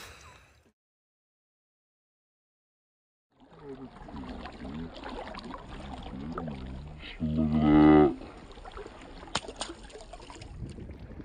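Dead silence for about three seconds, then outdoor background noise with faint voices, and a loud drawn-out shout lasting about a second, about seven seconds in.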